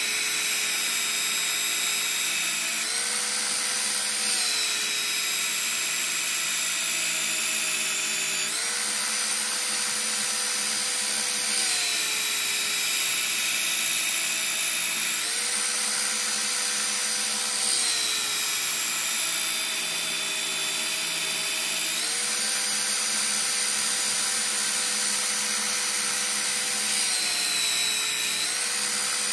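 Einhell TC-BS 8038 800-watt belt sander running as a steel blade is ground against its belt to put an edge on it. The motor and belt whine shifts down and back up in pitch every few seconds as the blade is worked on the belt.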